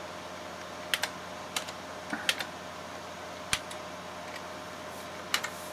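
Computer keyboard keystrokes: a few scattered, unhurried key presses while a command is typed at a DOS prompt, over a steady background hum.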